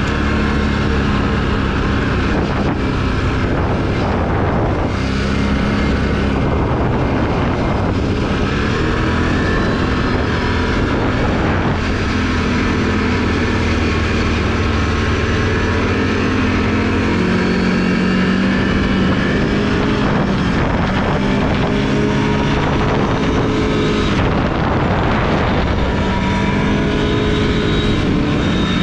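A Can-Am Renegade ATV's V-twin engine running under way, its pitch rising and falling as the throttle changes.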